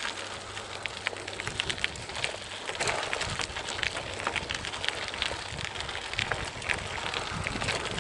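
Dense, irregular crunching and crackling of a stony, litter-strewn forest track under movement.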